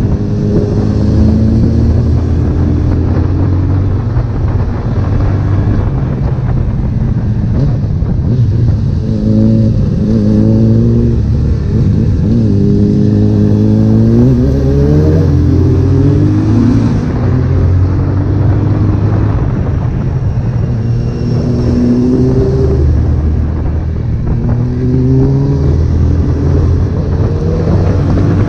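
Honda CB1000R inline-four engine running under way, its revs climbing and dropping back several times as it pulls through the gears, over constant wind and road rumble.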